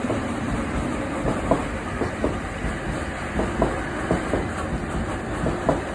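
Metro track-recording train of Ezh3/Em-508T cars rolling past, with a steady running noise and wheels clacking irregularly over rail joints.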